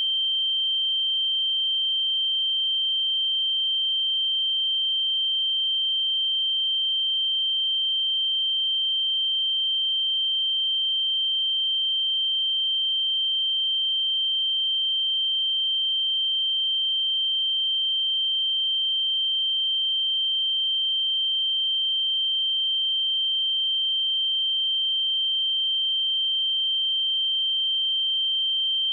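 A pure 3136 Hz sine-wave test tone, one steady high-pitched note held without change.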